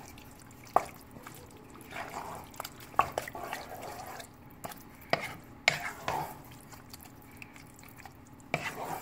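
Wooden spoon stirring a thick chicken-and-gravy mixture in a pot, with soft wet sloshing and several short sharp knocks of the spoon scattered through.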